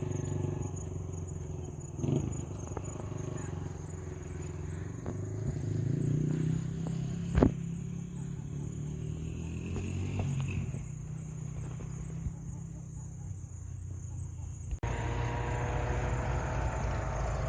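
An engine running steadily, with a single sharp knock about halfway through. The sound changes abruptly near the end.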